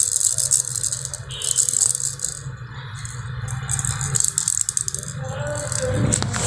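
Plastic baby rattle shaken in short bursts with brief pauses between them.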